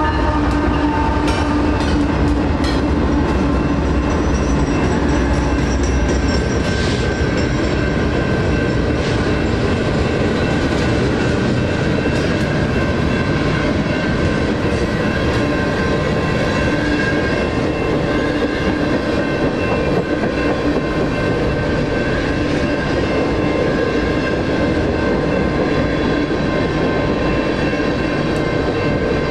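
BNSF freight train rolling through a grade crossing. Diesel locomotives rumble past in the first several seconds, then the wheels of coil and tank cars clatter steadily over the rails. Under the train, the crossing's NEG electronic bells ring with a steady tone.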